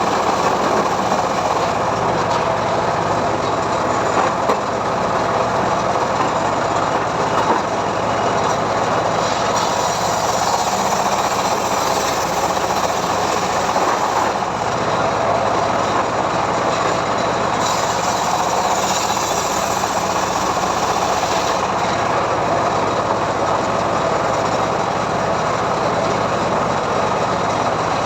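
Homemade engine-driven sawmill running steadily while sawing mahogany. The sound gets harsher and brighter twice for a few seconds at a time.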